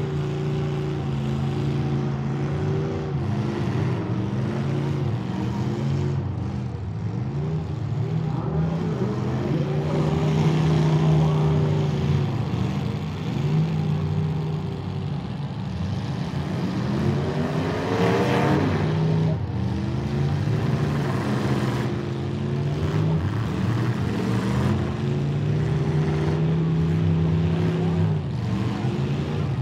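Demolition derby car engines revving up and down over and over, several at once, with one engine revving hard about two-thirds of the way through.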